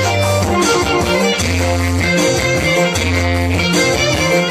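Loud music for a Batak tortor dance: a pitched melody over a bass line that moves to a new note about once a second.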